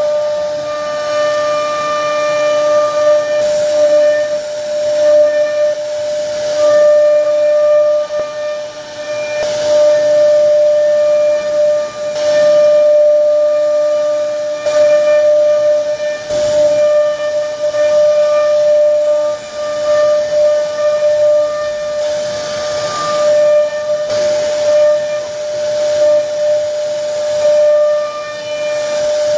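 CNC router spindle running at a steady high-pitched whine while the bit cuts grooves into a wooden panel. A rushing cutting noise swells and fades every few seconds as the bit moves through the wood.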